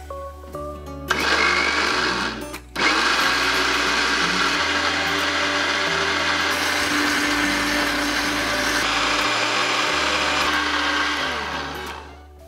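Philips ProBlend 4 countertop blender running, blending a green liquid. It starts about a second in, cuts out briefly, then runs steadily and winds down near the end as it is switched off at the dial.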